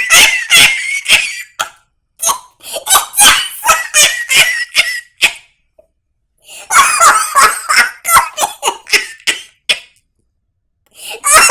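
A person laughing hard in three long fits, with short breaks between them.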